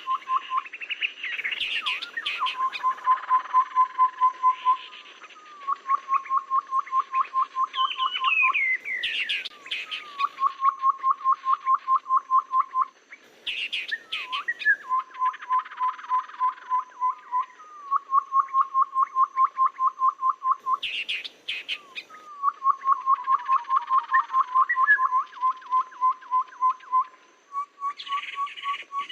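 Recorded Tepus babbler calls used as a bird lure. Fast trains of short, even notes at one pitch, about nine a second, repeat every few seconds, broken by higher chattering and sliding notes.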